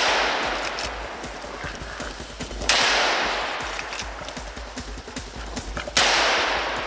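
Three hunting-rifle shots fired at a running herd of wild boar: one at the very start, one about three seconds in and one near the end. Each is followed by a long echo that dies away.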